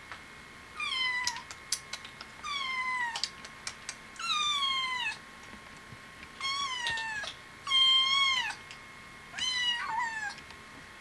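A kitten meowing over and over: six high calls, each falling in pitch and lasting under a second, about one every second and a half.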